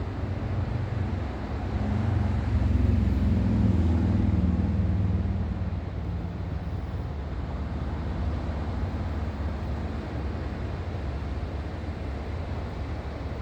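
Ocean surf: a steady rushing wash of breaking waves with a deep rumble, swelling louder as a wave breaks about two seconds in and easing off again by about six seconds.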